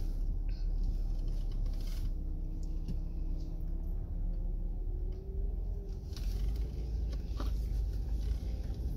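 Minivan engine and tyres heard from inside the cabin while driving slowly at low speed: a steady low rumble with a faint hum that drifts in pitch, and a few small clicks.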